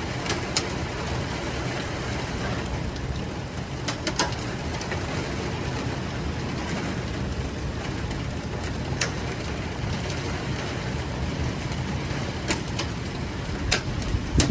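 Steady rain and road noise heard from inside a moving car, with a few scattered sharp taps.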